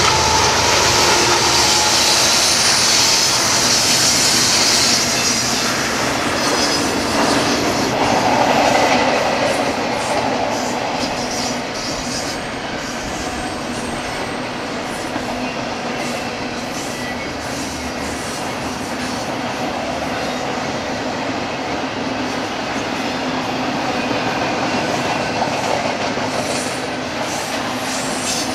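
BNSF freight train of mixed freight and intermodal cars rolling past: a steady rumble of steel wheels on rail, with a high wheel squeal for the first few seconds and light clicking from the wheels later on.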